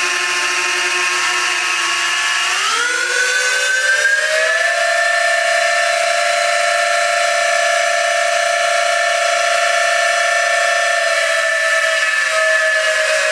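The brushed motors of a Syma X8 quadcopter, propellers off, running on the bench with a steady high whine of several close pitches. The whine climbs in pitch about three seconds in, then holds, drawing about two and a half to nearly three amps.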